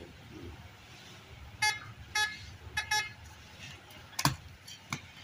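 Vishco metal detector giving short, high beeps, four in about a second and a half, as its coil passes over buried metal. Near the end come two sharp strikes of a small pickaxe into hard dirt.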